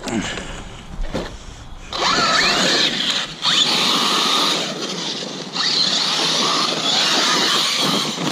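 Arrma Kraton 6S RC monster truck running hard, its brushless motor and drivetrain giving a high whine that rises with each burst of throttle. It is quieter for the first two seconds, then runs loud, with two brief let-offs.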